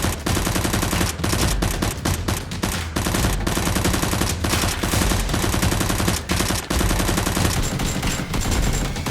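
Dense automatic gunfire sound effects: rapid shots, many a second, in long bursts with a few short breaks.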